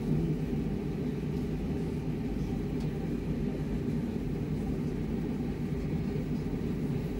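Steady low mechanical rumble with no distinct strokes or clicks.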